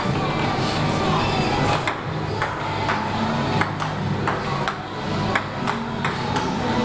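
Table tennis rally played with chopping boards as bats: the ball clacks off the boards and bounces on the table, a sharp click every half second or so, with some quick double clicks where a bounce follows a hit.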